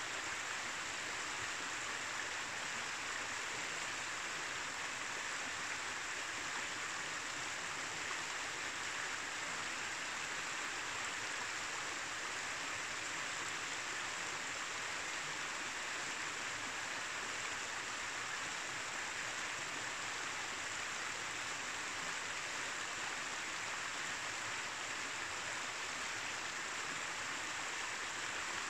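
Shallow mountain river running over stones and small boulders: a steady, even rush and babble of water.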